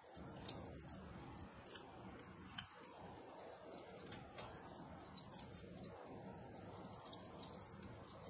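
Faint scattered clicks and ticks from a hand-held metal citrus squeezer pressing a lime half over a steel bowl.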